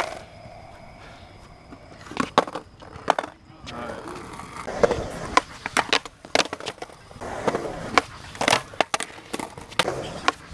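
Skateboard on concrete: wheels rolling, with sharp clacks as the board lands and strikes, and the trucks grinding along a concrete ledge. The clacks come thick after about two seconds in.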